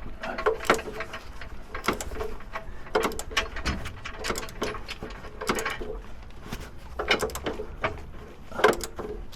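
Ratchet clicking and metal tools clanking in irregular bursts as bolts are worked.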